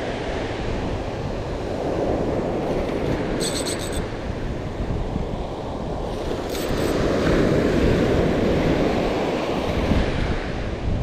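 Surf washing onto the beach in swells, with wind buffeting the microphone. Two short bursts of faint high ticking come through about three and a half and six and a half seconds in.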